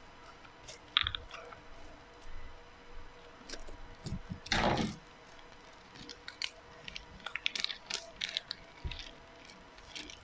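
A small plastic packet of foam slime beads being handled and opened, giving light crinkles and scattered small clicks, with one louder rustle about halfway through and a quick run of little clicks in the second half.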